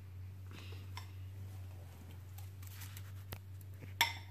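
Plastic spatula scraping and tapping in a small glass bowl as mashed banana is scooped out, with scattered light clicks and a louder knock near the end. A steady low hum lies underneath.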